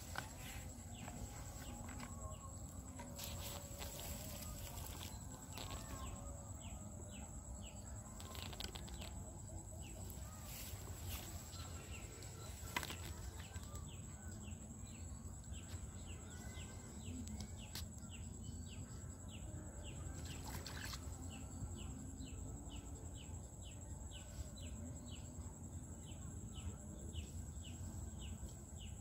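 Faint rural outdoor ambience with birds calling: a quick chirp repeats about twice a second through the second half, over a steady low rumble, with a few light clicks scattered through.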